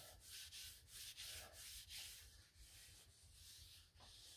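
Wiping the steel flat top of a Blackstone griddle by hand: faint rubbing strokes, about three a second, that weaken after about two and a half seconds. It is the wipe-down that follows scraping the griddle clean after cooking.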